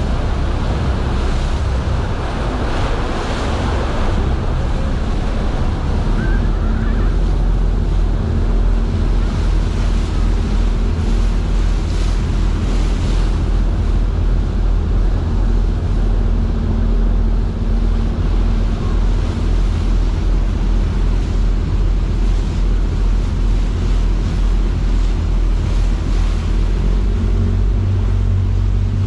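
Wind buffeting the microphone over the steady rush of turbulent, foaming tidal current churning around a sightseeing ship, with the ship's engine humming low underneath.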